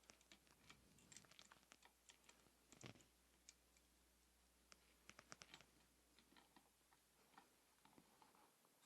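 Faint, scattered clicks and light taps of small metal engine parts and tools being handled and set in place, with a cluster about a second in, a slightly louder knock near three seconds and another run of clicks around five seconds.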